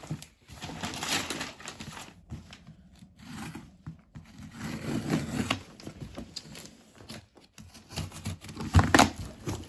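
Wrapping paper and packing tape being torn and crumpled by hand, in irregular bursts with short pauses, and a louder sharp noise about nine seconds in.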